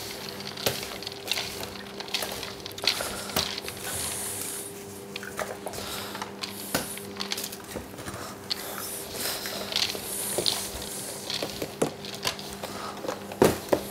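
Hands turning and rubbing a dry mix of dried fruit, shredded suet and breadcrumbs in a stainless steel bowl: a continuous rustle with many scattered soft clicks. A steady electrical hum runs underneath.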